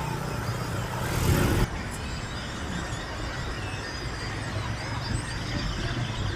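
Many small birds chirping over a steady low rumble. A burst of noise swells in the first second and a half and cuts off abruptly.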